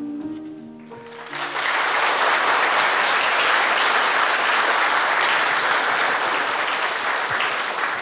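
The last notes of Viennese waltz music end about a second in, and a hall full of guests breaks into steady applause, thinning near the end.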